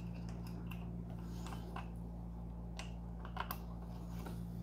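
Small irregular clicks and taps of plastic wiring being pushed and tucked by hand into a Prusa MK3S+ 3D printer's electronics box, with a couple of sharper clicks about three and a half seconds in.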